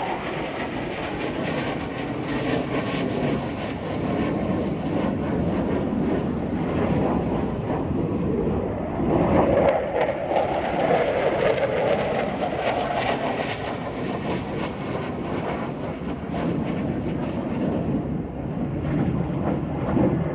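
Low-flying F-35 Lightning stealth fighter passing overhead: the rough roar of its jet engine, swelling about nine to thirteen seconds in and easing off toward the end.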